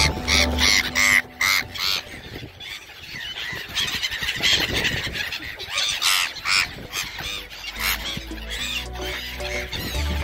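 A flock of black-headed gulls calling, many short harsh squawks overlapping, with background music's low sustained notes at the start and again near the end.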